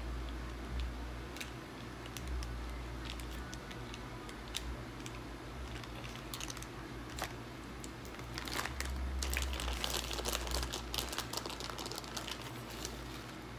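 Plastic packaging crinkling: a small sauce packet being handled and squeezed with scattered crackles, then a snack chip bag crinkling densely through the second half.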